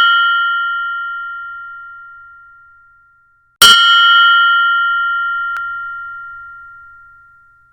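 High-pitched meditation bell ringing out from a strike just before, fading away. It is struck again about three and a half seconds in and rings clear, dying away over about four seconds.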